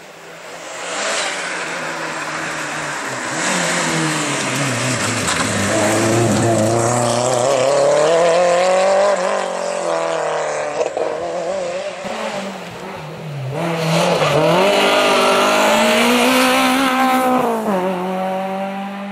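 Rally car engines under hard acceleration, their pitch climbing and dropping through gear changes and lifts across a few short clips. The loudest stretches come about halfway in and again near the end.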